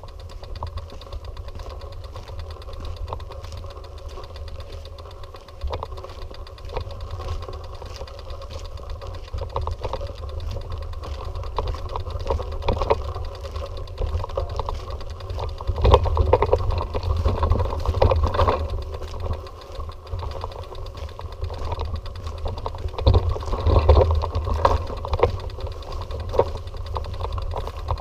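Rattling and clicking from a bicycle being ridden over an uneven road, with wind rumbling on the microphone; the rattling comes in rougher bouts about halfway through and again near the end.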